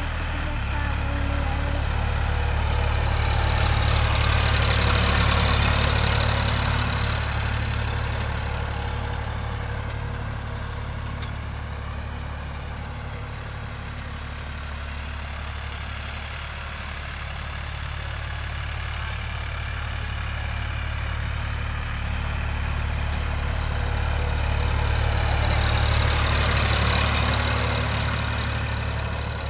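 Sonalika 42 HP tractor's diesel engine running steadily under load while pulling a nine-tine cultivator through the soil. It grows louder as the tractor passes close, about five seconds in and again near the end.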